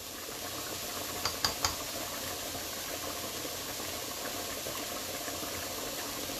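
Pans cooking on the stove, fideo simmering in its broth beside ground beef with onion: a steady bubbling, sizzling hiss. Three quick sharp clicks about a second and a half in.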